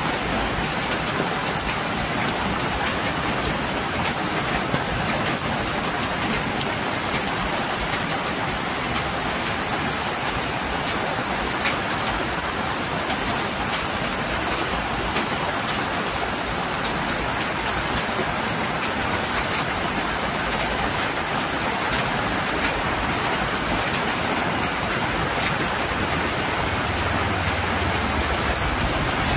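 Heavy rain falling steadily on a street, with water running off a roof edge. In the last few seconds a motorcycle engine comes in low under the rain as it approaches.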